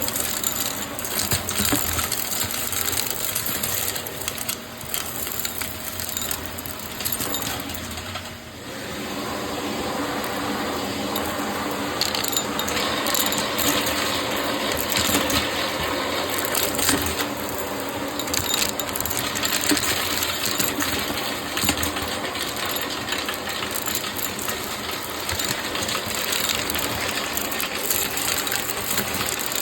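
Shark vacuum cleaner running and sucking up crunchy debris, which rattles and crackles through the head. The sound dips briefly a little over eight seconds in, and the crackling is denser afterwards.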